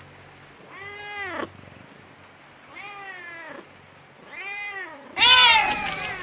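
Kitten meowing four times, each meow rising then falling in pitch; the last one is much louder.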